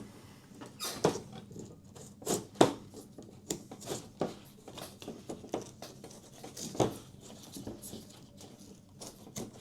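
Utility knife blade slicing through the excess window screen mesh along the spline, in irregular scratchy strokes and clicks, the sharpest about two-thirds of the way through.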